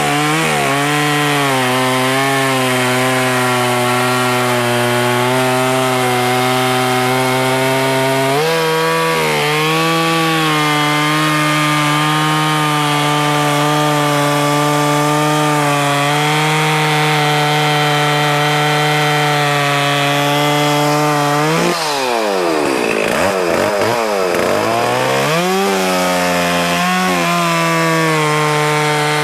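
Stihl 044 two-stroke chainsaw with a carbide chain running at full throttle, bucking through a log. The engine holds a steady pitch under load; about three quarters of the way through, the engine speed drops sharply and climbs back over about three seconds.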